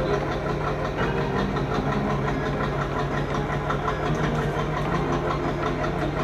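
Water tanker truck's engine idling steadily while the truck feeds water through a hose.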